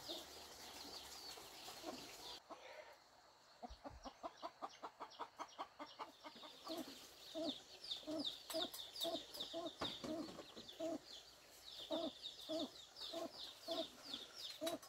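Chickens clucking: a quick run of clucks a few seconds in, then slower, spaced clucks, with high chirping over them throughout.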